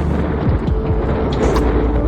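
Background music with held notes that step from one pitch to another, over a steady rush of wind and water noise.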